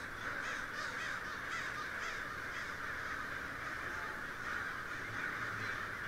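A large flock of birds calling all at once: a steady, dense chorus of many overlapping calls with no single voice standing out.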